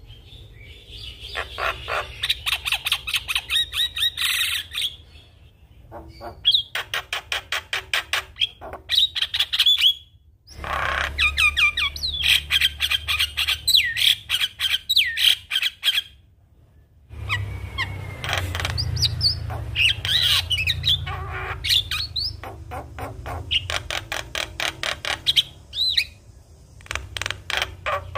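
Javan myna (jalak kebo) singing: fast rattling runs of harsh notes mixed with squawks and short whistled glides. The song comes in bursts broken by a few brief pauses.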